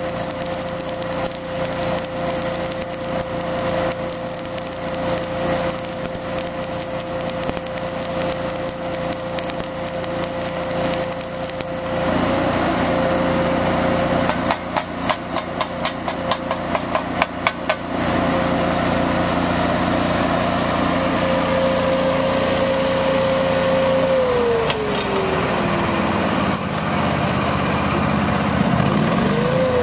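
An engine powering a stick welder runs steadily while the electrode arc crackles against a steel plate for roughly the first twelve seconds. Then a chipping hammer knocks slag off the weld in a quick series of about a dozen sharp strikes. Near the end the engine drops to idle, falling in pitch, and briefly rises and falls again.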